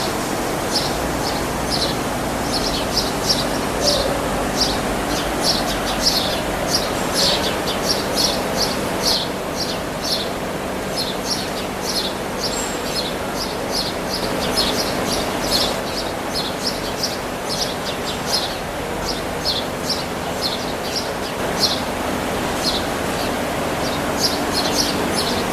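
Small birds chirping rapidly and continuously, two or three short high chirps a second, over a steady mechanical hum in a dairy cow barn.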